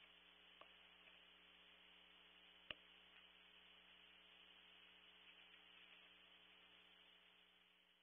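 Near silence: steady electrical hum and hiss from a nest-box camera's microphone, with a faint click about a second in and a sharper one near the three-second mark. The sound fades away near the end.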